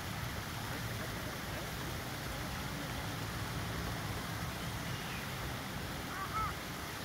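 Steady rush of a garden pond's waterfall pouring over rocks, with a low rumble beneath it. A couple of faint short chirps come about six seconds in.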